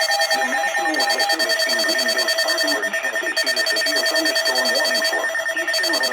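Electronic emergency-alert tones: several steady tones held together over a fast, wavering pulse.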